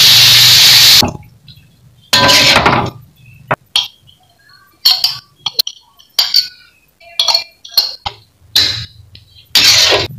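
Water poured into a hot aluminium wok sizzles loudly for about the first second, then cuts off. A metal spoon then clinks against a glass plate over and over, with a few short, louder noises in between.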